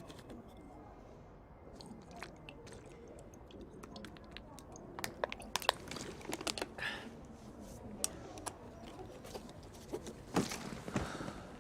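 Clinking and clattering of dishes, bowls and utensils in a busy restaurant. Irregular sharp knocks and clicks come thickest in the second half, over a low background hubbub.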